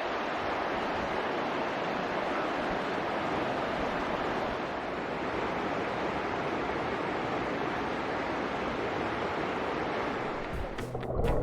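Mountain valley stream rushing, a steady even rush of water. Background music comes in near the end.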